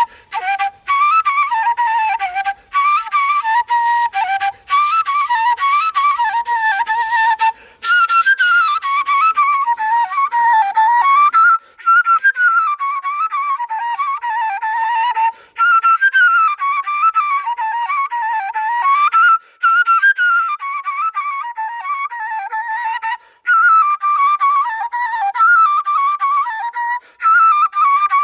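Solo kaval, the end-blown Balkan shepherd's flute, playing an ornamented folk melody in phrases broken by short pauses for breath.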